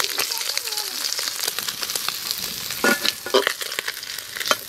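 Small puti fish sizzling in hot oil in a metal wok, with a metal spatula scraping and clicking against the pan as the fried fish are lifted out onto a steel plate; a few sharp clinks come about three seconds in and near the end.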